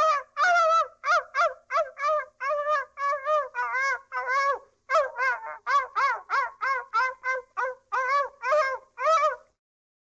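Cartoon animal-call sound effect: a rapid string of about twenty short pitched calls, each bending up and down in pitch, like a barnyard fowl, stopping about half a second before the end.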